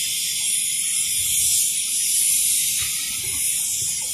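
Steady high-pitched hiss of an operating process plant's background noise, with a few faint low thuds.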